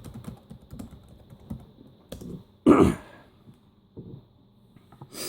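Typing on a laptop keyboard: scattered key clicks, then one much louder thump about two and a half seconds in, and a few last key presses.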